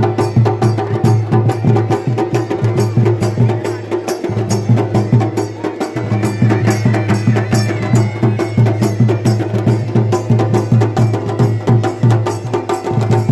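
Kumaoni folk band music for the Chholiya dance: fast, dense drumming over a steady held drone.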